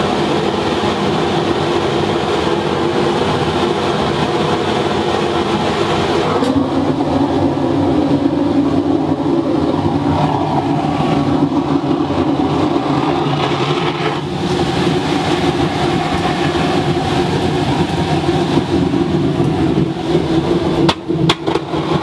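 Waste-oil burner running flat out with a loud, steady rush of flame and air. About six and a half seconds in, a click is followed by a fuller, lower sound as the flame is turned into the drum furnace. A few sharp knocks come near the end.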